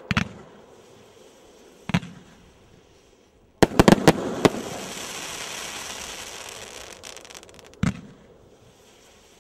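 Aerial firework shells bursting in the sky: single sharp bangs about two seconds apart, then a quick volley of several bangs about four seconds in, followed by a few seconds of hissing noise that fades, and one more bang near the end.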